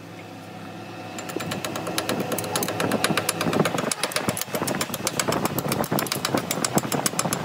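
Arc welding on a truck differential pinion shaft turning in a lathe: a dense, rapid crackle that starts about a second in and keeps going, over a low steady machine hum.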